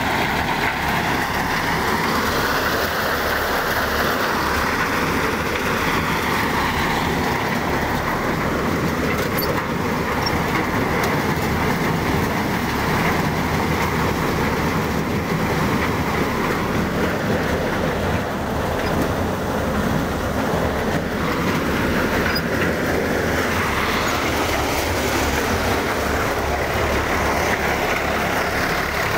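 Tractor-driven thresher running steadily, with the tractor's engine under it: a continuous dense mechanical rattle as crop is fed through and straw is blown out.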